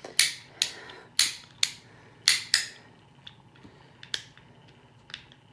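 Hand tool clicking and snapping as it is worked: about eight sharp, irregular clicks, most and loudest in the first three seconds, a few fainter ones after.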